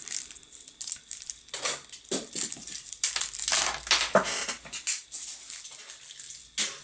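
Clear plastic packaging crinkling and rustling in short, irregular crackles as the bagged headphones are handled.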